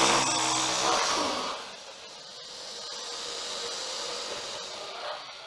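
Crocodile hissing: one long, breathy hiss, loudest in its first second and a half with a low pitched growl beneath it, then going on more quietly and fading out near the end.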